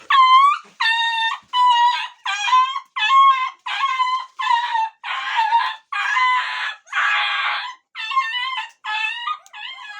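A dog, likely a puppy, crying in a rapid series of short, high-pitched yelping whines, about fifteen cries of roughly half a second each.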